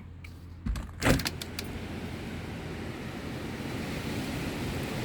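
A knock, then a sharp clunk with a few clicks about a second in, followed by a steady rushing noise that slowly grows louder.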